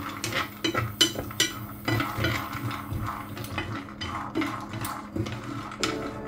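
Cashews stirred in a dry stainless-steel frying pan with wooden chopsticks and a wooden spatula: irregular light clicks and knocks of nuts and wood against the metal pan, the sharpest about a second in, with a faint steady hum underneath.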